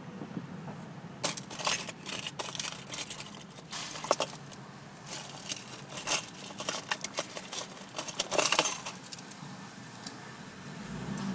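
Metallic clicking and light jingling rattles from a Nissan 370Z, coming in irregular clusters over a steady low hum; the heaviest cluster comes near the end.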